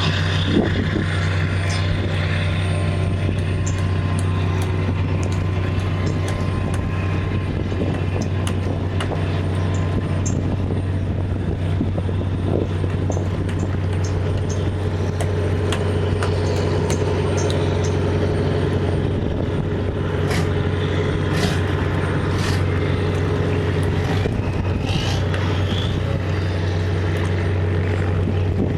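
An engine running steadily, a constant low hum, with faint scattered ticks and short high chirps over it.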